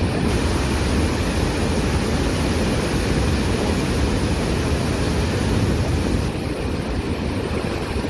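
Athirappilly waterfall in heavy flow: a deep, steady rush of falling water.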